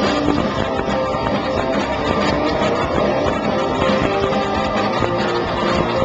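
Live rock band playing, with electric guitars and drums, loud and steady, recorded from the crowd.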